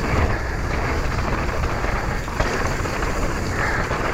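Mountain bike riding down dirt singletrack: knobbly tyres rolling over the trail and wind rushing across the action-camera microphone in a steady rumble, with a few short knocks and rattles from the bike.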